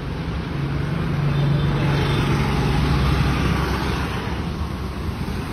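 Road traffic noise, with a motor vehicle passing close: its engine hum and tyre noise swell over the first few seconds and then ease off.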